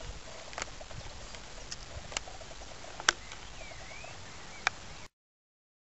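Faint steady outdoor hiss broken by a few sharp clicks, the loudest about three seconds in, with a faint dipping whistle just after it. The sound cuts off to dead silence about five seconds in.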